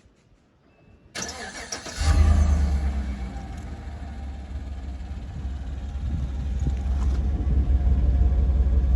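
Cold start of a 2015 Chevrolet Silverado's 5.3-litre V8 on its stock muffler. The starter cranks for about a second, then the engine catches and settles into a steady idle that is super quiet.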